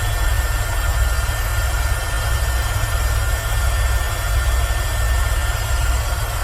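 Airbus H130 EcoStar single-turbine helicopter in steady cruise, heard on board: a heavy, even low rumble of rotor and engine with a faint steady high whine.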